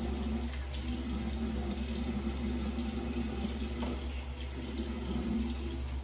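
Bathroom sink faucet running steadily while a face is rinsed under it to wash off a dried clay face mask, with a couple of brief splashes.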